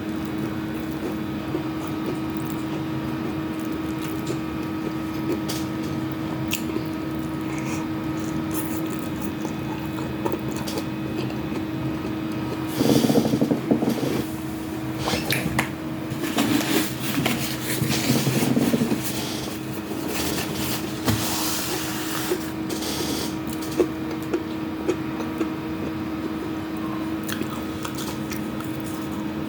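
Eating sounds: chewing, wet mouth sounds and small clicks, over the steady hum of an electric fan. A louder, busier stretch of eating noise comes in a little before halfway and runs for several seconds.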